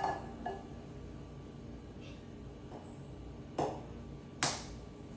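An egg being knocked against the rim of a mixing bowl to crack it open for separating: a few sharp taps, with two stronger knocks near the end, the last the loudest.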